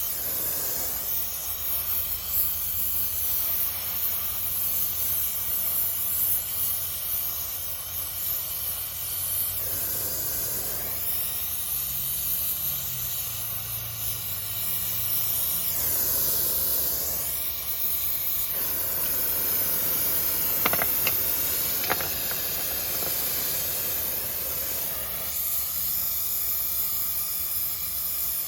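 Gas-welding torch flame hissing steadily while a hole in a motorcycle crankcase is welded shut, with two brief sharp ticks about three quarters of the way through.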